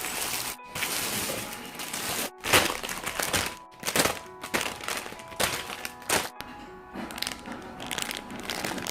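Plastic packaging crinkling and rustling in repeated loud stretches, broken by several abrupt cuts, over background music.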